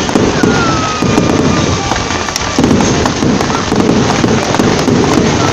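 Fireworks crackling densely and continuously, a rapid spray of small pops from a close-range display. A faint whistle falls slowly in pitch over the first couple of seconds.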